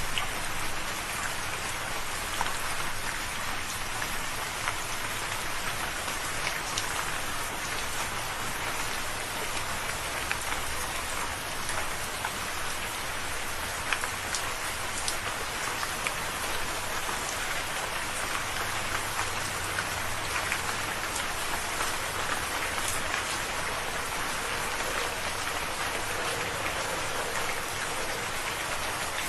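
Steady rain falling, an even hiss with scattered louder drop ticks throughout.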